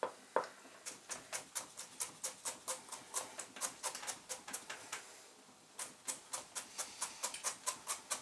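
Kitchen knife chopping carrot into thin sticks on a cutting board: quick, even taps about four a second, in two runs with a short pause between them.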